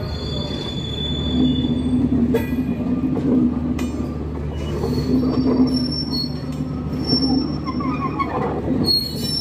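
Broad-gauge intercity passenger coaches rolling carefully past: a steady rumble of wheels on rail, with high-pitched wheel squeal that comes and goes and a few clacks over rail joints.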